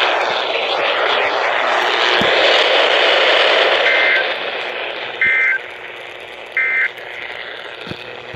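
Weather radio receiver hissing with static, then three short two-tone digital data bursts about 1.3 seconds apart. These are the SAME end-of-message code that closes an NWS warning broadcast.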